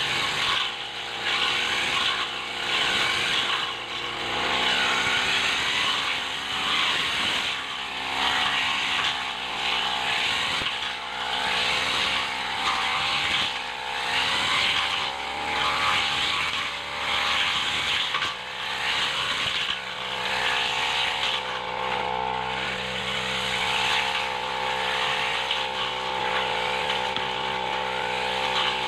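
Backpack brush cutter's engine running at cutting speed while its spinning head slashes through thick weeds and grass. The engine note holds steady under a hiss of shredded vegetation that swells and fades with each sweep.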